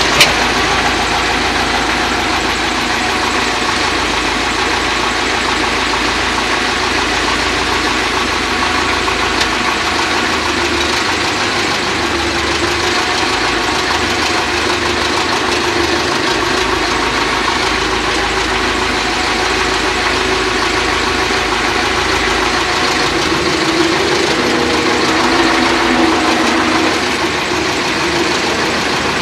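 Tractor engine idling steadily, heard from inside the cab, a little louder for a couple of seconds near the end. A single sharp knock comes right at the start.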